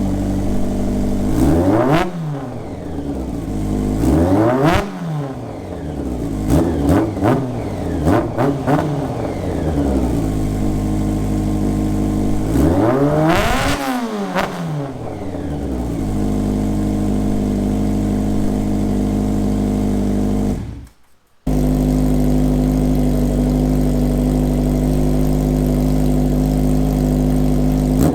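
Honda Nighthawk S inline-four engine, still cold, running through a hand-built exhaust with a SuperTrapp-style disc muffler. It is blipped up and back down several times over the first fifteen seconds, then idles steadily. The sound drops out for a moment about two-thirds of the way through, and the idle comes back with a slightly different tone.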